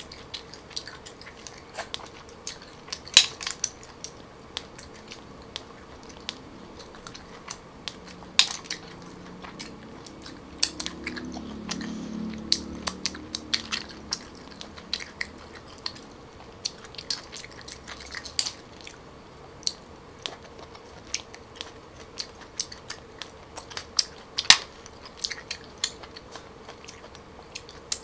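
Close-miked eating of boiled hairy cockles: mouth chewing and biting, with frequent sharp, irregular clicks of the hard shells being pried open and knocking together.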